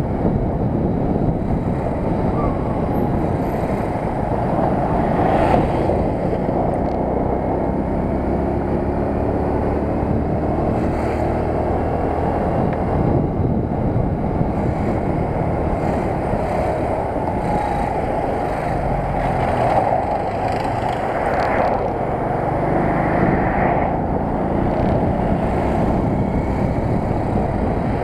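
JSD100 Chinese cub moped's 97cc four-stroke single-cylinder engine running at cruising speed, heard from an onboard camera under heavy wind rush and road noise. The engine note rises and falls slightly in places as the throttle changes.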